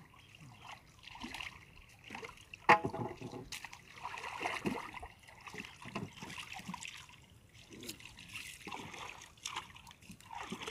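Shallow water splashing and trickling as men wade and drag a wet rope through it beside a wooden boat, with one sharp knock a little under three seconds in.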